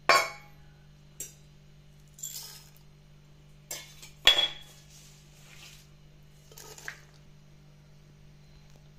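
Ingredients being tipped into a blender jar: a handful of separate clinks and knocks against the jar and bowls, the loudest about four seconds in, as allspice berries and garlic cloves go in.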